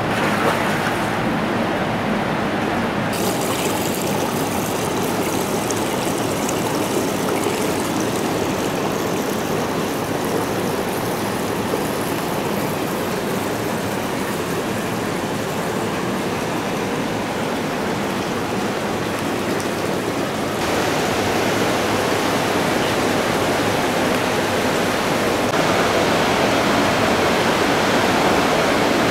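Steady rushing water, an even hiss with no distinct splashes, growing louder about twenty seconds in and again a few seconds later.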